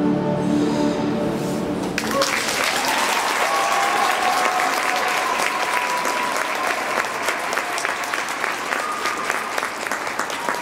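Instrumental program music ends about two seconds in, and the audience breaks into sustained applause, dense fast clapping that carries on to the end.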